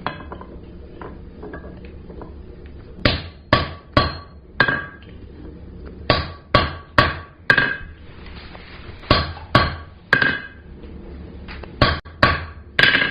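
Hammer striking a center punch into the iron bar on the anvil, recessing the screw holes. Fourteen sharp metallic blows come in four quick groups of four, four, three and three, about half a second apart, each ringing briefly.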